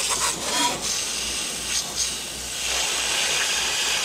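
Water from a hose sprayer blasting against the underside of a lawn tractor's mower deck: a steady hiss of spray that shifts a little partway through as the jet moves.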